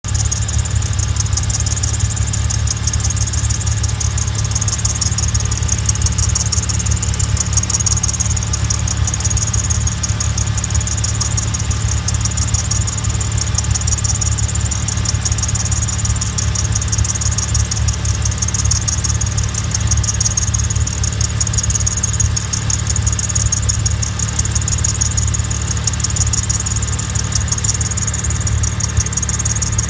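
Mazda RX-7 rotary engine idling steadily, with a fast, even high-pitched scratchy ticking over the low engine hum. The owner asks whether this ticking means a fault, even a blown engine.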